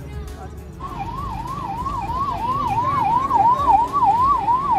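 Ambulance siren yelping: a fast rising-and-dropping wail that repeats about three and a half times a second, starting about a second in, over a low traffic rumble.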